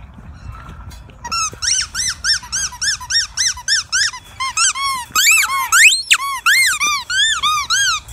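Squeaky toy squeezed over and over: a fast run of short rising-and-falling squeaks, about three a second, with one longer squeak sliding upward near six seconds.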